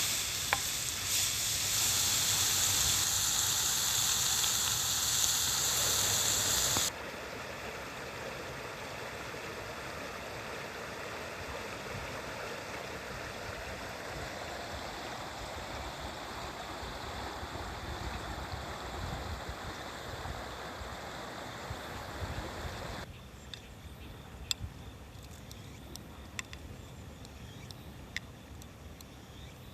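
Food frying in a pan over a campfire: a loud steady sizzle that cuts off abruptly about seven seconds in to a softer, even hiss. Later it drops again to a quiet background broken by occasional sharp crackles.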